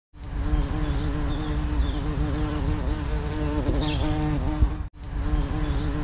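A flying insect's wings buzzing: a steady droning buzz whose pitch wavers slightly. It cuts out for a moment near the five-second mark and starts again.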